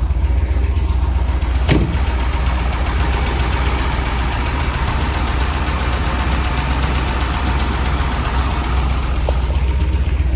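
Chevrolet 454 big-block V8 idling steadily and smoothly, with little cam lope: it has a small, mild cam. A single sharp click about two seconds in.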